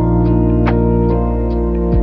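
Background music: sustained chords over a beat, with low kick-drum hits and light percussion ticks, and no singing.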